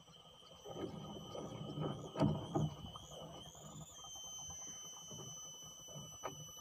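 A steady high-pitched whine that wavers in pitch for a second or two, then settles. Under it are rustling and a few sharp knocks from handling in a small wooden boat, loudest about two seconds in.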